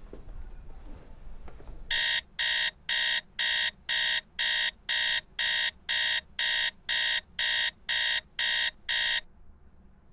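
Electronic alarm beeping, a high-pitched repeated beep about two times a second. It starts about two seconds in, sounds about fifteen times and cuts off abruptly.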